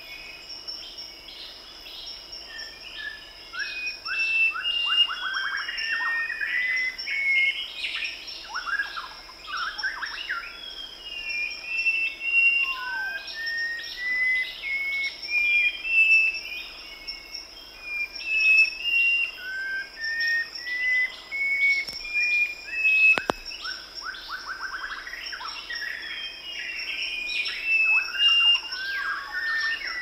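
Tropical rainforest ambience: several birds chirping and calling over a steady high insect drone. One bird repeats a series of short notes that step upward in pitch, three times. A single sharp click comes about three-quarters of the way through.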